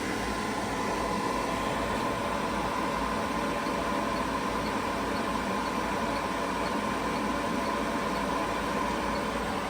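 Steady whir of cooling fans running during a Supercharger charge, with a faint steady high tone over it.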